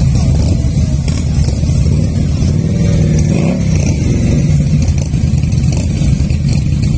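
Many motorcycle engines running together in a steady low rumble as a column of bikes rolls slowly past, with one engine revving up briefly about three seconds in.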